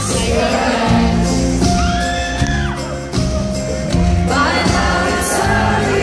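Live pop-rock band playing, with a woman singing held, gliding notes into a microphone, heard from within the audience.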